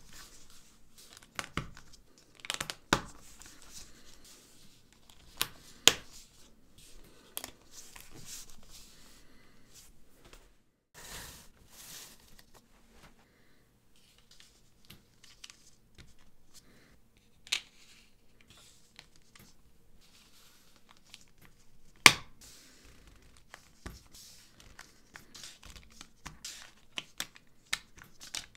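LEGO plates being handled, set down on a table and pressed together: scattered sharp plastic clicks with soft sliding and rubbing between them. The loudest click comes a little past two-thirds of the way through.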